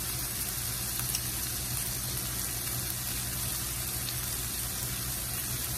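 Pork chops sizzling steadily on a flat griddle over a gas stove, fat hissing as they sear.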